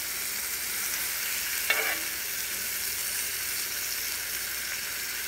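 Blackened catfish fillets sizzling steadily in a hot cast-iron skillet on a charcoal kettle grill, with one short click about two seconds in.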